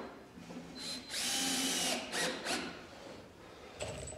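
Power drill driving a T25 deck screw into wood: one run of about a second, then two short bursts as the screw is seated.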